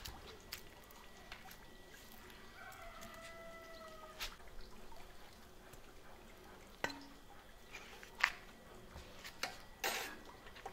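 Grilled chicken pieces being slid off a metal skewer into an enamel pot: scattered light clicks and knocks of the skewer and meat against the pot, the sharpest about eight and ten seconds in.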